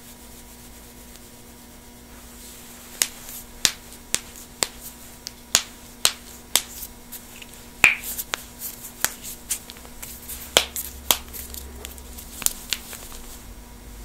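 Knuckles cracking: a run of sharp pops, about two a second starting a few seconds in, then a quicker cluster of smaller pops around the middle and a few last ones near the end.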